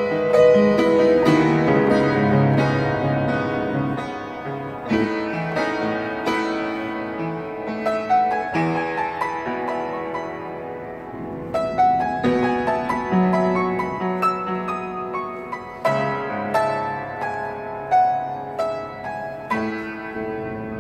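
An upright piano played by hand: melody notes over chords, struck and left to ring. Phrases start again with a louder chord every few seconds.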